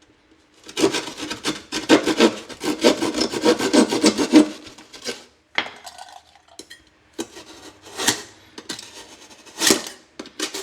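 Hand drywall keyhole saw cutting through gypsum board in quick back-and-forth strokes for about four seconds, then a few single scraping strokes near the end.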